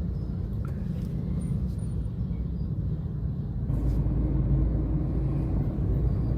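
Vehicle engine running in slow, heavy traffic: a steady low rumble that gets louder about four seconds in.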